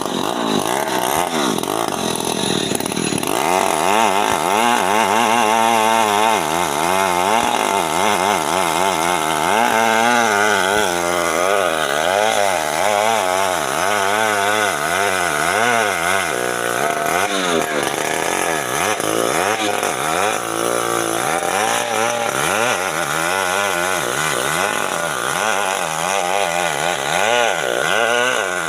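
Chainsaw cutting guava wood, the engine's pitch dipping and climbing back again and again as the chain bites and clears.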